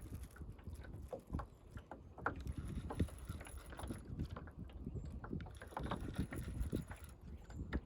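Small plastic fishing boat on the water: irregular low knocks and splashy bumps against the hull, with no motor running.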